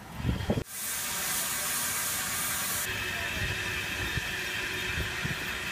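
Steam hissing steadily from a narrow-gauge saddle-tank steam locomotive. It starts abruptly about half a second in, just after a couple of low knocks, and settles about three seconds in to a softer hiss with a faint whistling tone.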